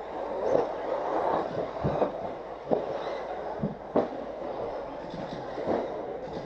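Radio-controlled race buggies running on an indoor dirt track: a steady rumbling noise broken by about six sharp knocks.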